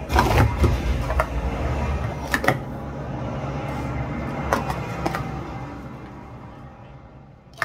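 Speed Stacks plastic sport-stacking cups clacking and sliding into each other as a pyramid is downstacked into three nested columns. It is a string of sharp plastic taps, busiest in the first half, with one last crisp tap near the end.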